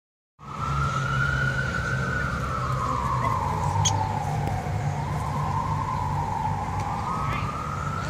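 Emergency vehicle siren in a slow wail, its pitch falling and then rising again over several seconds, over a steady low hum. A brief high chirp about four seconds in.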